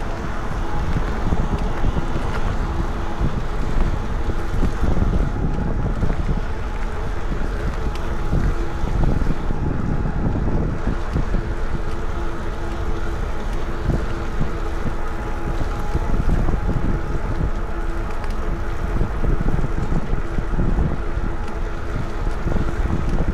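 Wind buffeting the microphone of a camera mounted on a moving electric bike, a steady rumbling rush, with a thin hum that fades in and out.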